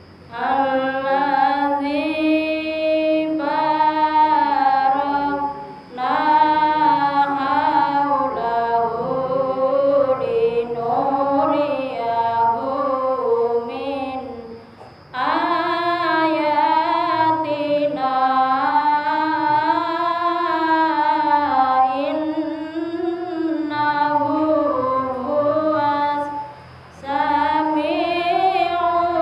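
A woman reciting verses of the Quran in the melodic tilawah style into a handheld microphone, holding long, ornamented phrases. Her voice breaks off briefly for breath three times, about six, fifteen and twenty-seven seconds in.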